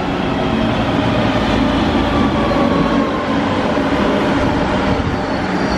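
Metro train pulling into the station alongside the platform, its running noise growing louder as it arrives. A faint, slowly falling whine follows as it slows, and a faint high squeal starts near the end.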